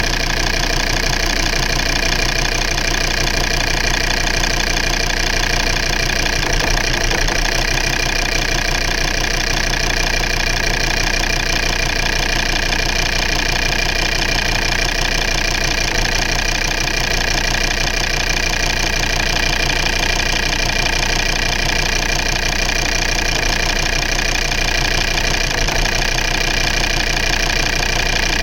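Volvo V70 2.4D five-cylinder diesel engine idling steadily, heard up close from the engine bay, while its injector wiring loom is wiggled to provoke a misfire. The owner suspects a broken wire where the loom joins its plug.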